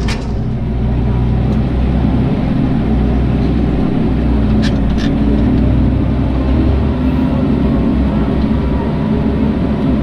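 Tractor engine running steadily under load while pulling a reversible plough through the soil, with a brief click at the start and two short clicks about halfway.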